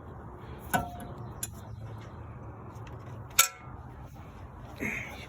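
BMW i3 brake pads clinking as they are handled: a sharp metallic clink about a second in and a louder one after three seconds, each with a brief ring, over a low steady hum.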